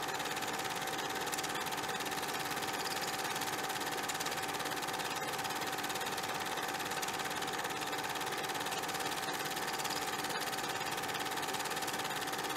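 A steady mechanical running sound with a fast, even clatter and a constant hum, unchanging throughout.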